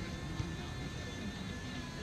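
Background music over a steady low outdoor rumble, with one short knock about half a second in.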